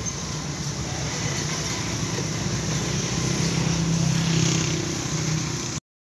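An engine running steadily, a low drone that swells about three seconds in, over an even hiss of outdoor noise; it cuts off suddenly near the end.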